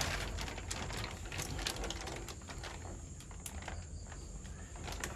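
Tank water sloshing and splashing irregularly as hands and a plastic fish bag are worked in it to let the fish out.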